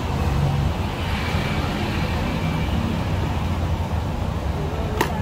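Road traffic with a steady low engine rumble from vehicles on the street, and a single sharp click about five seconds in.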